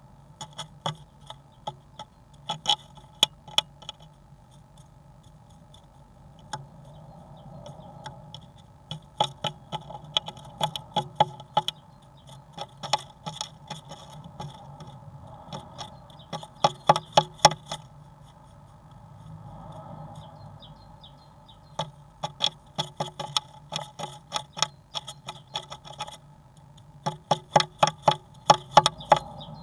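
Great tit inside a wooden nest box tapping at the wood: runs of quick, sharp taps, several a second, coming in bursts of a second or two with short pauses between, over a steady low hum.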